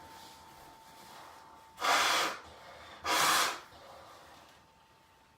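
A man forcing air hard through his nose twice, each burst about half a second long and about a second apart, during a bout of clearing his nose.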